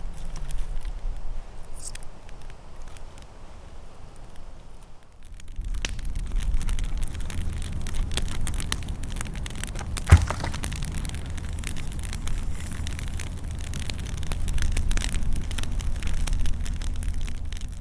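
A fire crackling with many small pops and one sharp pop about ten seconds in, over a low rumble that sets in about five seconds in.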